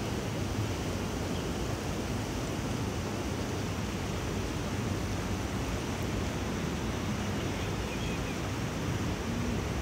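Steady rushing of shallow river water flowing around stepping stones, an even hiss with no distinct events.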